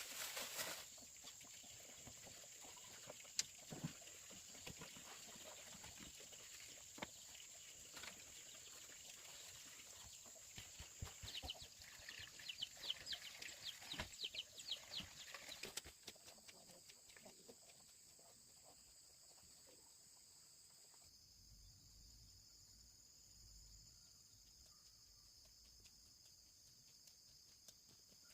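Faint farmyard sound of chickens, with scattered soft clicks and a quick run of high chirps from about eleven to sixteen seconds in.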